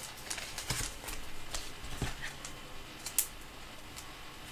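Light clicks, taps and soft rustles of trading cards and their plastic sleeves being handled on a table, scattered and irregular, with one sharper tap a little after three seconds in.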